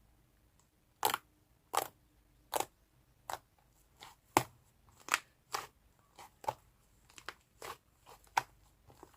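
Soft, fluffy slime being pressed and squeezed by hand, giving sharp popping clicks, roughly one every 0.7 seconds at first and then more irregular, with some fainter pops later.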